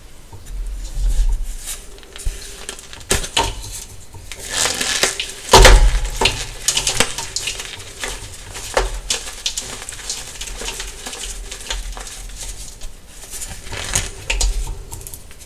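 Soft dyed gym chalk being crushed by hand, with irregular crunches and crackles and a light gritty hiss, the loudest crunch about five and a half seconds in.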